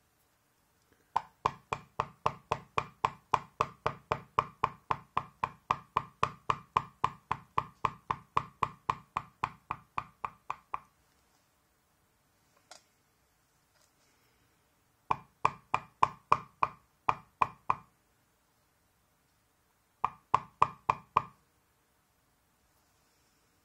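Maul tapping a steel beveler stamp on carved leather during clean-up beveling, with quick, even knocks at about four a second. There is a long run of about ten seconds, a single tap, then two shorter runs after pauses.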